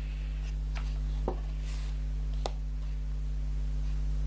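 Clear plastic two-tier storage box being handled: a few light plastic clicks and a knock as the top tray is lifted off, with a brief rustle, over a steady low hum.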